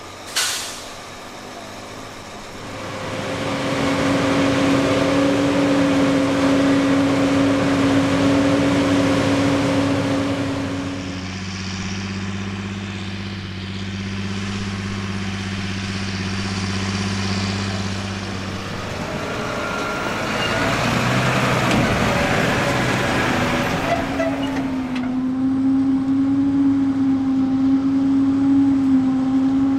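Large diesel farm machinery running under load, with a steady engine hum and whine whose pitch shifts a few times. A sharp click comes about half a second in.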